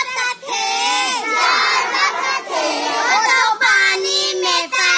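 Group of young girls singing and chanting a Hindi children's action rhyme together, loud and half-shouted, with several children's voices at once.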